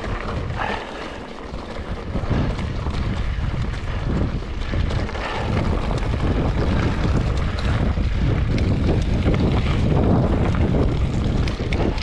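Wind rushing over the camera microphone while riding along a trail, a steady noisy rumble that is heaviest in the low end and dips briefly about a second in.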